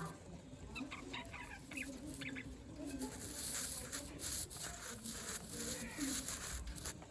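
Birds feeding, giving short low clucking calls, with a cluster of brief higher chirps about a second in and scattered clicks of beaks pecking at food.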